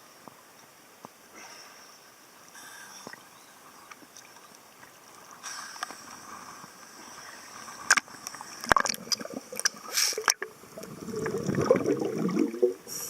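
Water sloshing around a dive boat with several sharp knocks, then about two seconds of loud splashing and gurgling near the end, typical of divers entering the water.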